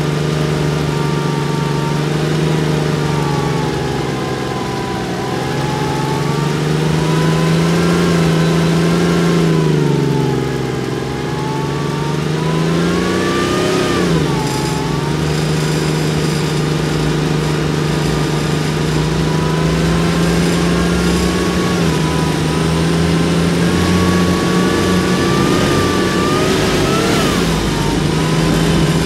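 Saurer SPz A1 armoured personnel carrier's diesel engine running under load while driving, its revs rising and falling; the pitch climbs and then drops sharply, once about halfway through and again near the end.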